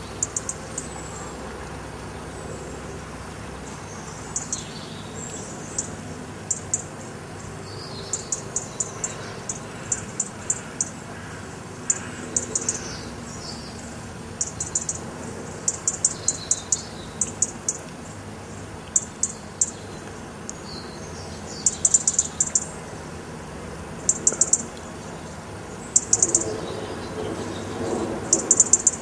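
Small birds chirping: short, high-pitched chirps in quick runs of three to six, repeated every second or two, over a steady background hiss.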